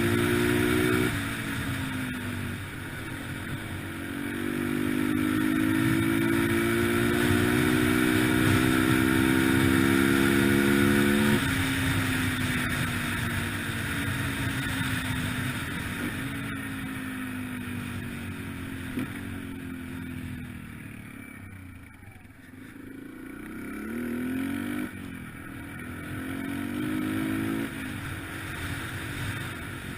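2003 Yamaha TT-R125LE dirt bike's single-cylinder four-stroke engine pulling under throttle. The note climbs in pitch and then drops sharply several times, as with gear changes. It eases off and quietens about two-thirds of the way through, then pulls up again.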